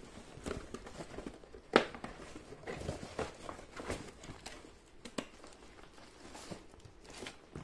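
Cardboard packaging being handled: a printed sleeve is slid off a sampler's cardboard box and the box lid is lifted, with rustling, scraping and scattered light knocks. One sharp knock about two seconds in is the loudest.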